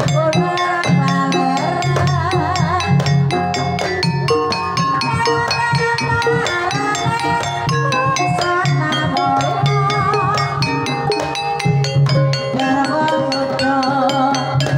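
Javanese Banyumasan gamelan playing a tayub piece: bronze bonang kettle gongs struck with padded beaters in a quick running pattern over the rest of the ensemble's metallophones and low gong tones. A sinden (female singer) sings over it with a wavering vibrato, through a microphone.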